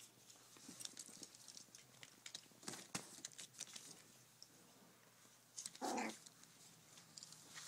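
Month-old poodle puppies shifting about on plastic sheeting, with soft scattered crinkles and clicks. About six seconds in, one puppy gives a single short yip.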